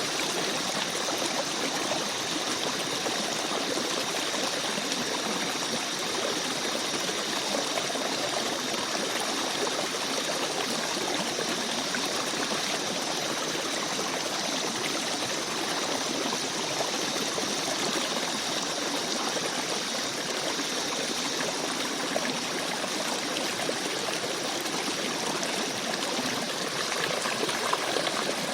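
Small forest stream babbling over stones: a steady, even rush of flowing water with light trickling.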